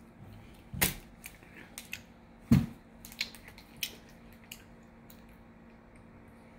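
Handling noises: two dull knocks, about a second in and about two and a half seconds in, among scattered light clicks and taps, over a faint steady hum.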